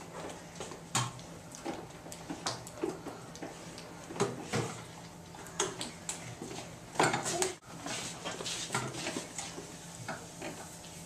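Classroom noise: scattered light knocks, taps and clatter, with a louder cluster about seven seconds in, and children's voices faintly in the background.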